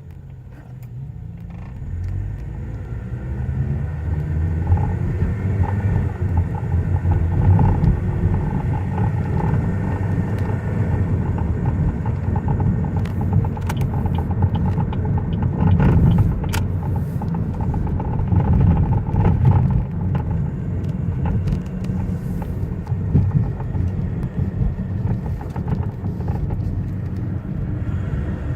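Inside a 2005 Chevy Cobalt as it picks up speed: engine and road noise rising over the first few seconds, then a steady low rumble at cruising speed. A few sharp clicks come near the middle.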